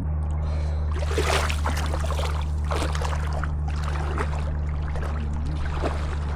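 River water splashing and sloshing in irregular surges as a person wades out into the river, over a steady low hum.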